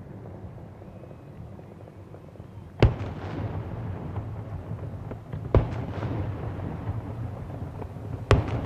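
Fireworks shells bursting: three sharp bangs spaced about two and a half to three seconds apart, each trailed by echo, over a steady low rumble.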